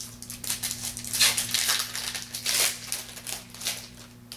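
Sports card pack wrapper being torn open and crinkled in the hands, a rapid, irregular run of crackling rustles that ends with a small click.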